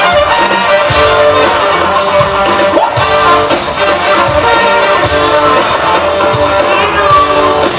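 Live band playing an instrumental passage: a trumpet lead over electric guitar and drum kit, with no singing.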